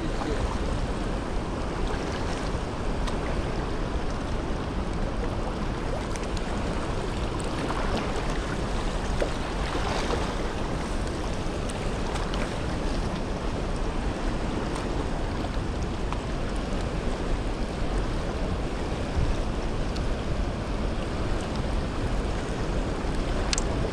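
Steady rushing of a fast river current, with a low rumble of wind on the microphone.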